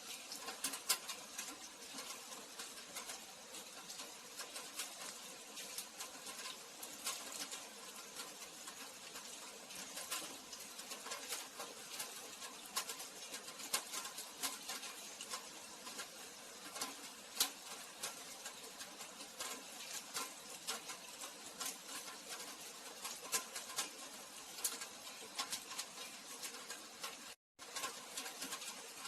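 Steady rain falling, an even patter of many separate drops ticking on hard surfaces. The sound cuts out for a split second near the end.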